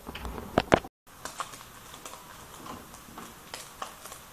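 A wooden spatula clacks against a stainless steel pan a few times in the first second. Then ground pork fries in oil in the pan with a faint sizzle and scattered small crackling pops.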